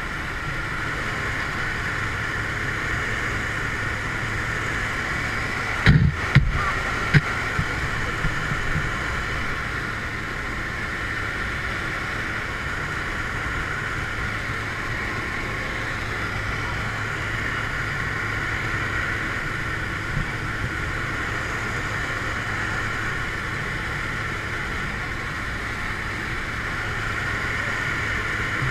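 Steady drone of a skydiving plane's engine and propeller heard from inside the cabin in flight. A few short knocks come about six to seven seconds in.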